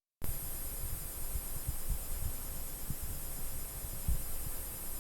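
Faint steady high-pitched whine from an Acer P221w LCD monitor, the buzz it makes when brightness is below full, which the owner puts down to the backlight inverter. Irregular low thumps and rumble are louder than the whine.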